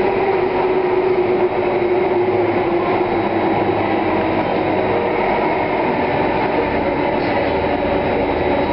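Circle Line C830 metro train running, heard as steady rumbling wheel and motor noise with a tone that falls slightly over the first few seconds.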